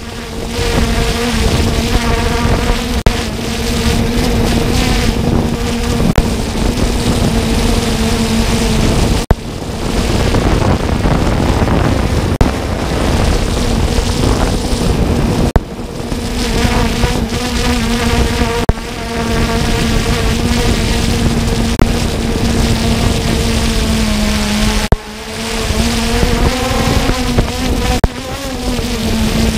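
Multirotor drone's propellers buzzing with a steady whine over a rush of air noise. The pitch dips and then climbs back near the end as the motors change speed. The sound breaks off briefly a few times.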